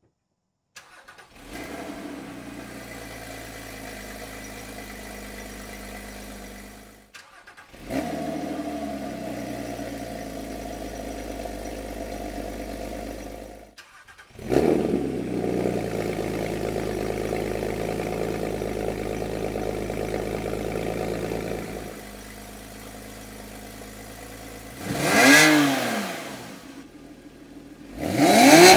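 Porsche Cayman 987.2 flat-six cold-starting three times in a row, heard at the exhaust tips: first through the stock exhaust, then a second start, then through a Soul Performance valved exhaust with the valves open, the loudest of the three; each catches with a flare and settles to a steady fast idle. Near the end the engine idles and is blipped twice in quick revs, the second through a Carnewal exhaust.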